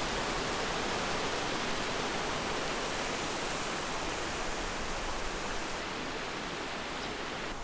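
Paddlewheel aerators churning the water of eel-farm ponds: a steady, even rushing splash.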